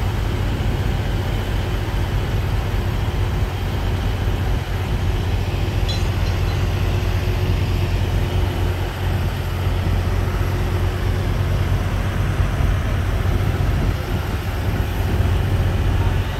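Mobile crane's diesel engine running steadily, a low, even drone.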